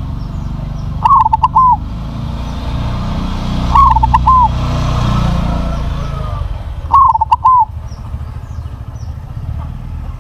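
Crossbred zebra dove (perkutut) cooing its song three times, each phrase a quick run of rolling notes, about three seconds apart. A low steady rumble underneath swells in the middle, and small birds chirp faintly.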